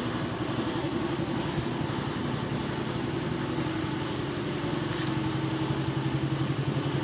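Truck engine idling steadily, with an even rapid pulse.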